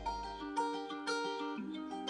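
Background music: a melody on a plucked string instrument, picked note by note, a few notes a second.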